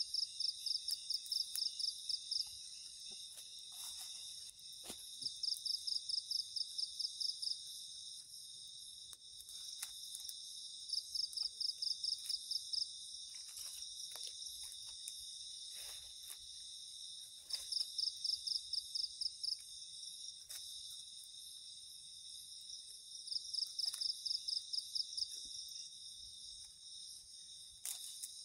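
Night insect chorus: a steady high-pitched trill of crickets, over which one insect gives a louder rapid pulsing call in bouts of about two seconds, repeating every five to six seconds. A few faint crackles come from the small wood fire.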